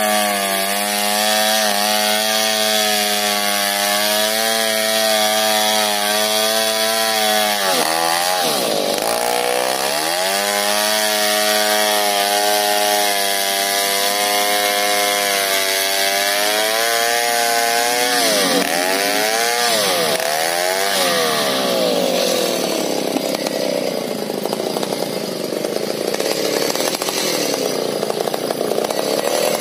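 Two-stroke chainsaw ripping a sengon log lengthwise, the engine held at high revs under load. Its pitch sags and recovers about eight seconds in, and dips several times in quick succession around nineteen to twenty-one seconds in; in the last several seconds the engine note turns rougher and less steady.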